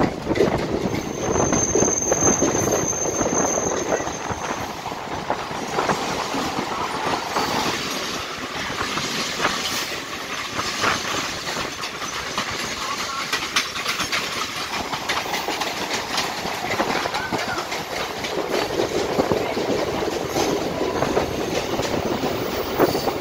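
Mumbai suburban local electric train running at speed, heard from aboard: a steady rush of wheels on rail with rapid clicking over the rail joints. A thin, high wheel squeal sounds for a few seconds near the start.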